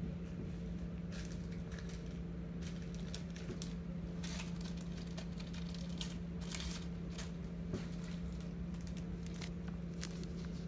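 Faint scattered crinkles and rustles of trading cards and a clear plastic pack wrapper being handled, over a steady low hum.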